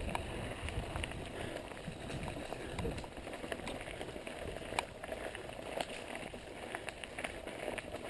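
Mountain bike rolling down a rocky trail: tyres crunching over rock with a steady stream of small clicks and rattles from the bike.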